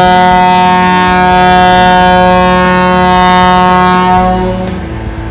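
Ship's horn of the SRB retrieval ship Liberty Star sounding one long, steady blast, which stops about four and a half seconds in.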